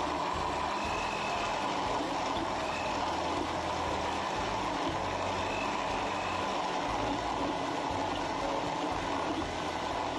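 Countertop blender running steadily at high speed, churning ice and ripe mango into a smoothie.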